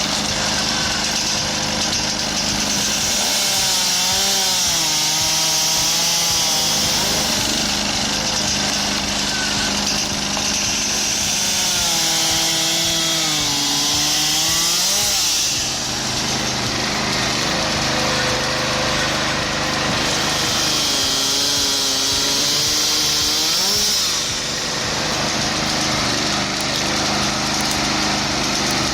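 Engine of an engine-driven firewood machine running steadily. Three times its pitch sags and recovers under load, each time with a loud harsh hiss of the work on the wood.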